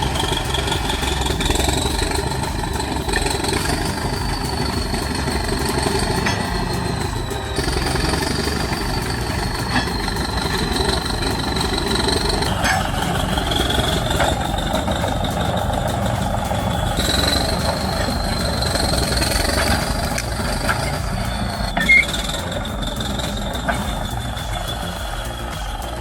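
T130 bulldozer with a root rake working: its diesel engine runs steadily under load, with a high whine that rises and falls with engine speed. The sound shifts abruptly several times.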